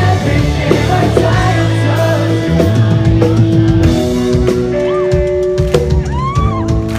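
A pop-punk band playing live at full volume: drum kit, electric guitars and bass with held chords, and a voice singing over them.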